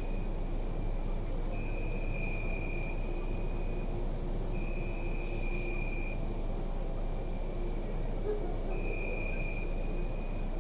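Crickets chirping in long, steady-pitched trills that come in bouts of a second or so, over a constant low rumble of background noise.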